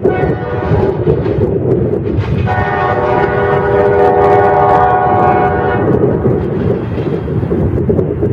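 Diesel locomotive air horn sounding a chord: a faint short note right at the start, then a long blast of about three and a half seconds, over the steady rumble of a passing train.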